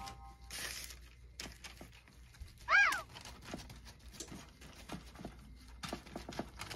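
Faint soft clicks and squishes of gloved hands pressing crab imperial onto a rockfish fillet on paper. A brief hiss comes near the start, and about three seconds in there is one short, loud yelp-like call that rises and then falls in pitch.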